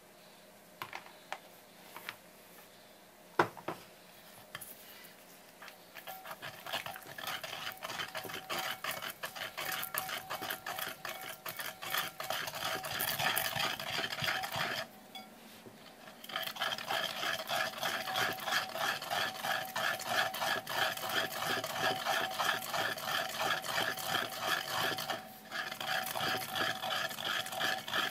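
A wooden pestle grinding and stirring in a ridged ceramic suribachi in rapid, even scraping strokes, working miso into sansho-leaf (kinome) paste. It starts after a few sharp knocks in the first four seconds, pauses for about a second and a half midway, and falters briefly near the end.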